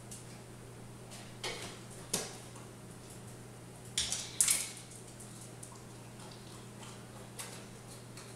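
A beagle moving about on a granite kitchen counter, with a few light clicks and clatter about a second and a half and two seconds in. About four seconds in it jumps down onto the tile floor: a quick cluster of knocks and claw clicks, the loudest sound here. A steady low hum underneath.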